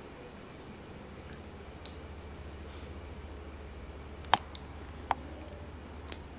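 Quiet room tone with a steady low hum and a few faint ticks, broken by two sharp clicks about a second apart, a little past the middle.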